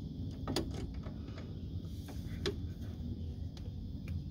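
A few light metallic clicks and clinks of a socket, extension and breaker bar being worked on a seized brake caliper bolt, over a steady low hum. The bolt does not break loose.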